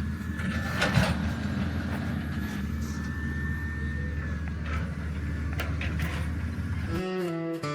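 Heavy equipment engine running steadily with a few sharp knocks. Acoustic guitar music comes in near the end.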